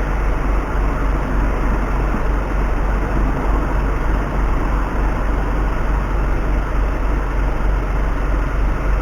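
Steady low engine and road rumble of a car, heard from inside the cabin through a dashcam's microphone.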